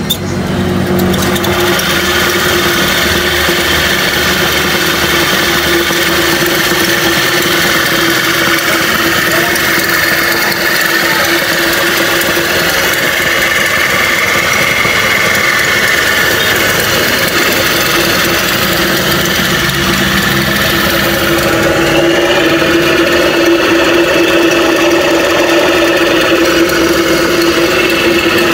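Electric motor of a homemade coconut grater running, turning a V-belt pulley and shaft in pillow-block bearings that spin the stainless grating head. It comes on at the very start and then runs as a steady hum of constant pitch with a whirring rattle over it.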